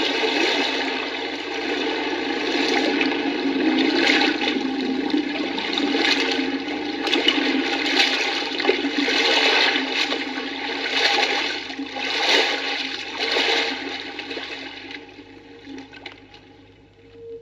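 Rushing water, loud and surging again and again, then dying away near the end.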